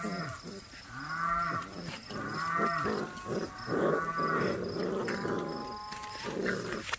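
Cattle mooing, a string of long calls that rise and fall in pitch, one after another.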